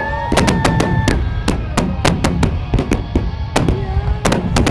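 Fireworks bursting in rapid succession: a dense run of sharp bangs and cracks, several a second, over a continuous low rumble. A steady held tone sounds through about the first second.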